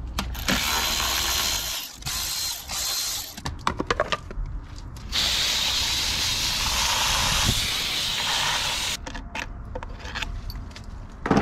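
Two long spells of steady hiss from a hose spraying water over an OMC sterndrive, broken by runs of quick ratchet clicking as bolts on the drive are worked, with a sharp click at the end.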